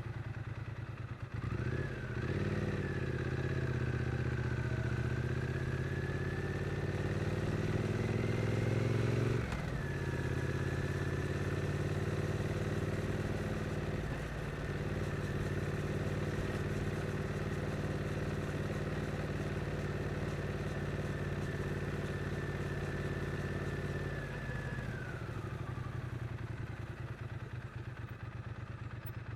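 2022 Triumph Street Twin's 900 cc parallel-twin engine pulling on the move. Its note climbs slowly, then drops sharply about ten seconds in, as with an upshift. It holds a steady cruise and eases off near the end.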